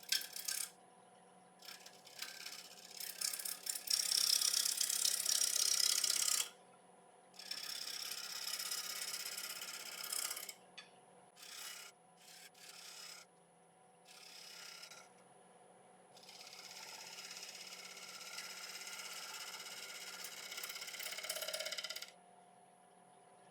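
A 5/8 inch bowl gouge cutting the underside of a spinning cypress bowl on a wood lathe, in a series of hissing cutting passes a few seconds long with short pauses between, the loudest pass about three to six seconds in. A faint steady hum of the lathe runs underneath.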